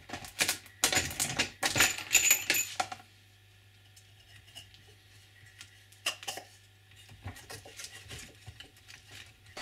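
Wooden connector piece being test-fitted over protruding joining screws: a quick run of knocks, scrapes and light metallic clinks for about three seconds, then a few softer knocks about six seconds in.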